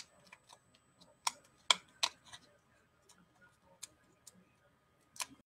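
Scattered sharp clicks and taps from paper and crafting tools being handled on a work desk, about eight in all at uneven spacing, the loudest a little under two seconds in.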